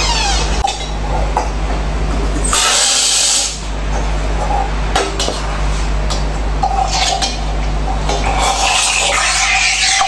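Steam hissing from an Ascaso Steel espresso machine's steam wand: a loud burst lasting about a second, some two and a half seconds in. Then the steam hisses into a stainless pitcher of milk near the end, with a few clinks of the metal pitcher.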